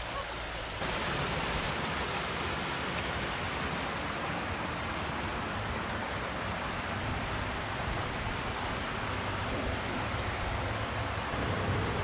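Steady rush of creek water flowing fast, a constant even hiss that steps up slightly in loudness a little under a second in.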